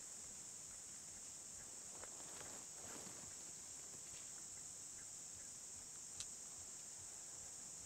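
Steady, high-pitched chorus of insects. Faint rustling about two to three seconds in, and a single sharp click about six seconds in.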